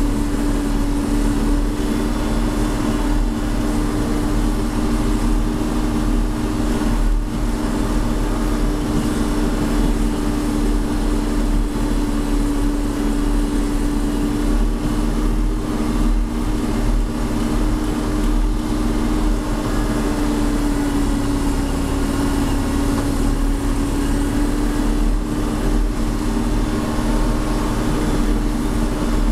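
John Deere 4630's turbocharged six-cylinder diesel running steadily under load while pulling a chisel plow through clover, heard from inside the cab. It is a constant drone with a deep rumble, and its pitch sags slightly about two-thirds of the way through.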